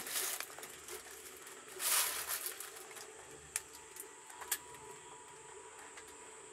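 Faint sounds inside a cable-car gondola: a brief rustle at the start and another about two seconds in, then two sharp clicks around the middle, over a faint steady high-pitched whine.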